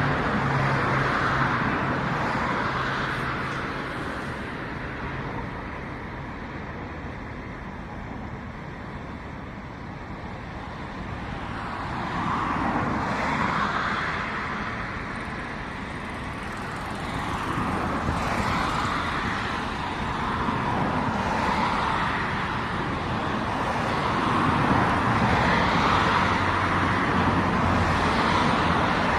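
Engine and rushing vehicle noise: a low steady hum under a broad rushing sound that swells and fades several times.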